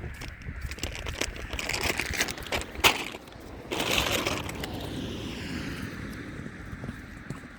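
Horse hooves clopping, with irregular knocks and rattles, a sharp knock just under three seconds in and a short rushing burst about four seconds in.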